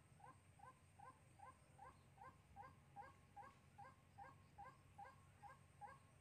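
White-breasted waterhen calling from a decoy trap cage: a faint, steady run of short notes, each rising in pitch, about two and a half a second.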